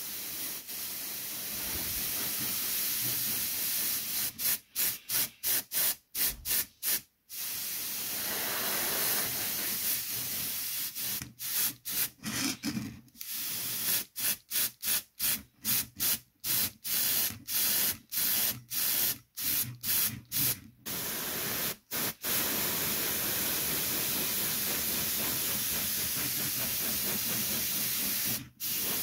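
Airbrush, a Harder & Steenbeck Infinity CR Plus with a 0.3 mm nozzle, hissing as it sprays dark shading ink: the trigger is pressed and released in many short bursts, about two a second, broken by longer unbroken sprays of several seconds, the longest near the end. The light, grazing passes lay shadow into the undersides of folds.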